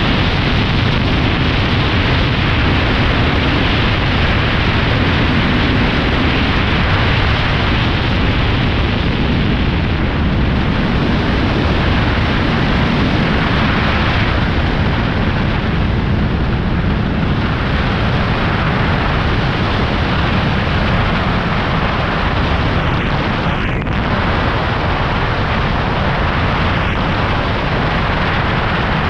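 Loud, steady rush of wind buffeting the camera microphone during a fast tandem zip-line descent.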